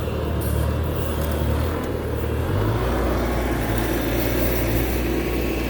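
Mini excavator engine running steadily, its low note dropping about two and a half seconds in.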